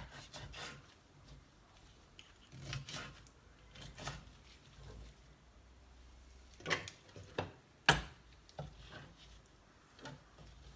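Knife cutting red bell pepper on a chopping board: irregular knocks of the blade against the board with soft rubbing between, the sharpest knock a little before the end.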